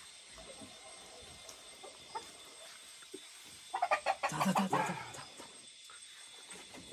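A chicken clucking: a short, rapid run of loud calls about four seconds in, over faint background noise.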